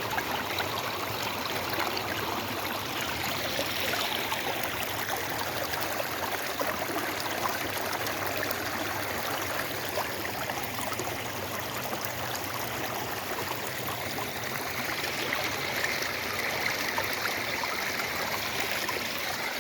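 Fast-running floodwater in a swollen creek, a steady rushing and splashing.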